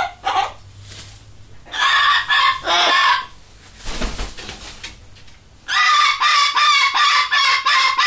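Cockatoos squawking: two bursts of harsh calls about two and three seconds in, then a fast run of repeated calls from about six seconds in.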